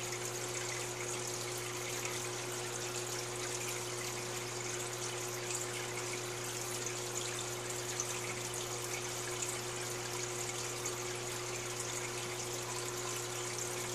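Aquarium filter running: a steady hum under an even trickle of water.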